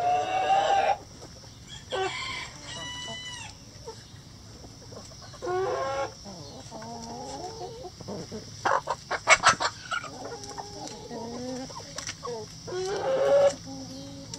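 A mixed backyard flock of chickens clucking and calling, with a rooster crowing among them. Around the middle comes a quick run of short, loud squawks.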